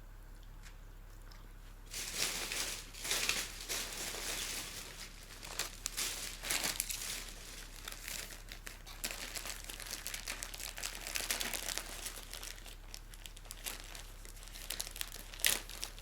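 Thin plastic packaging being handled, crinkling and crackling with some tearing, which starts about two seconds in and goes on in bursts, loudest in a sharp crackle near the end.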